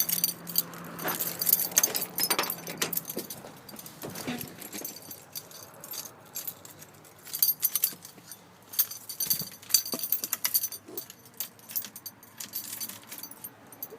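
Irregular metallic clicking and jingling in uneven clusters, with a faint low hum at times.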